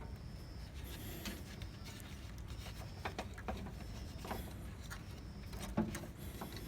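Scattered light clicks and taps from hand work on a car's engine belt and its tools, over a low steady background rumble.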